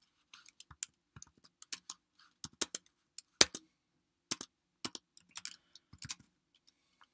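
Typing on a computer keyboard: a run of irregular keystrokes, with one much louder key strike about halfway through.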